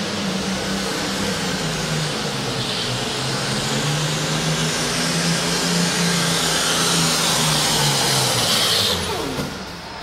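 Turbocharged engine of a Minneapolis-Moline G1000 super farm pulling tractor running hard under full load as it pulls the sled. About nine seconds in it bogs and winds down, snuffed out for lack of air through its 3-inch turbochargers.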